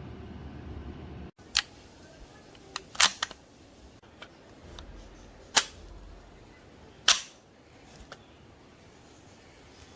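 A steady low hum that cuts off abruptly about a second in, then a series of sharp, separate clicks and taps of metal parts being handled, the loudest three spaced a couple of seconds apart.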